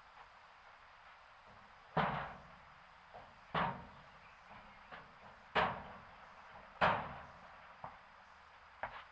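A series of knocks and bangs: four louder ones spread over about five seconds, each with a short ringing tail, and lighter taps in between.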